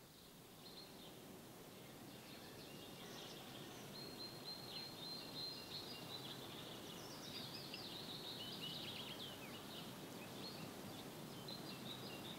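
Songbirds chirping and singing over a faint, steady outdoor hiss that swells gradually over the first few seconds; the calls are short, high and come in quick bunches, many sliding down in pitch.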